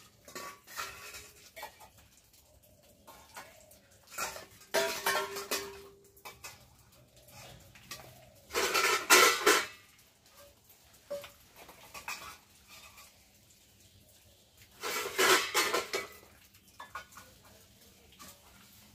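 Metal pots, bowls and plates clinking and clattering against each other as they are handled and washed, with a brief ring after some knocks. The clatter comes in three louder bouts, about five, nine and fifteen seconds in, the middle one the loudest.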